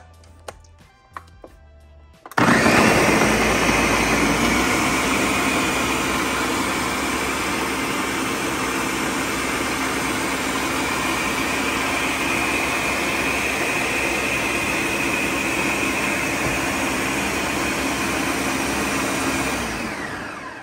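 Countertop blender running at a steady speed, blending a liquid punch base of milk, rum and soaked prunes. It switches on abruptly a couple of seconds in and winds down near the end.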